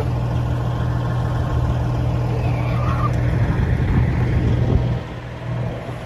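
Semi truck's diesel engine idling with a steady hum, which drops in level about five seconds in.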